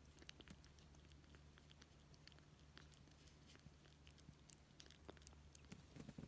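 A cat eating, heard faintly: irregular small wet clicks of chewing and licking over a low steady hum.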